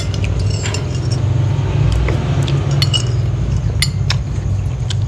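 Spoons and chopsticks clinking against glass bowls while eating, a handful of light, separate clinks spread through, over a steady low hum.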